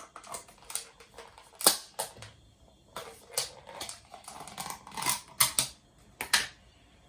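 Irregular clicks and light clattering taps of kitchen utensils while olives are put onto the chicken, the sharpest about a second and a half in, stopping shortly before the end.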